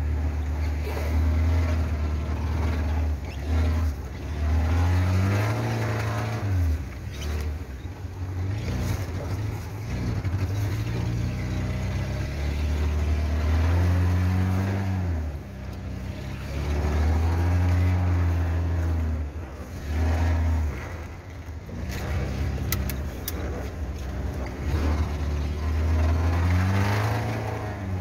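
Car engine heard from inside the cab, revving up and easing off over and over, its pitch rising and falling every few seconds as the car works along a muddy dirt track.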